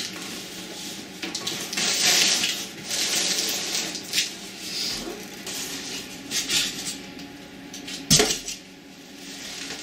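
Cardboard boxes and foam packing being handled: irregular rustling, scraping and sliding of cardboard, with a sharp knock about eight seconds in.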